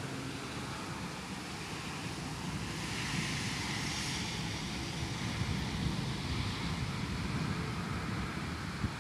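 Rain and wind in a storm, a steady rushing hiss with low rumble; a gust swells about three seconds in and eases off by about seven seconds.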